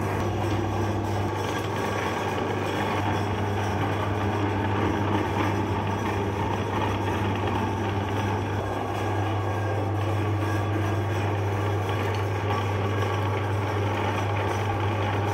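Meat grinder motor running steadily with a constant low hum as it grinds chocolate bars and pushes them out through the perforated plate.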